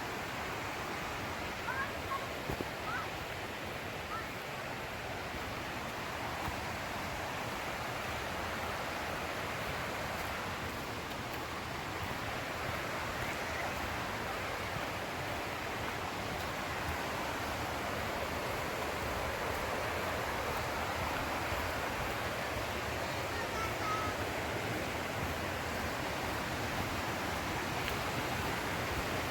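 Steady rushing hiss of a waterfall, growing slightly louder, with a few soft thumps about two seconds in.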